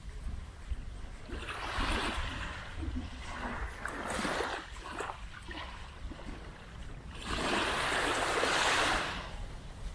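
Small waves washing onto the beach: three swells of surf noise that rise and fall, the longest lasting about two seconds near the end, over a steady low rumble.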